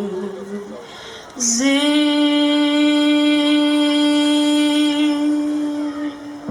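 A woman's singing voice holds the song's long closing note. It scoops up briefly into a steady pitch, held for about four and a half seconds before it stops. Before that, an earlier note with vibrato fades out within the first second.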